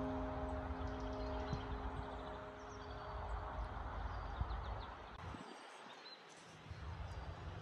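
A held piano chord fades out over the first three seconds. Then comes outdoor ambience: a low rumble of wind on the microphone that drops out briefly past the middle, with a few faint high bird chirps.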